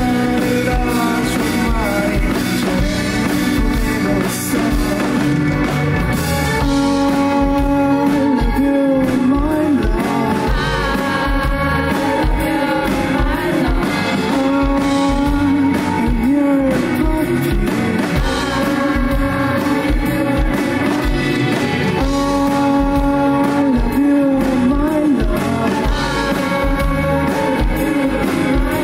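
Live rock band playing: a male voice singing over electric guitar and a steady drum beat.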